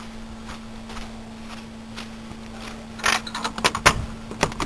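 A faint steady hum, then from about three seconds in a quick run of clicks and knocks as objects are handled.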